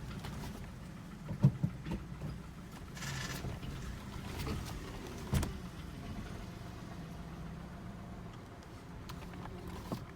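Hyundai HB20's three-cylinder engine running steadily with a diesel-like clatter that mechanics put down to the three-cylinder design, one suspecting piston pin noise. A few sharp knocks stand out about a second and a half in and again around five seconds.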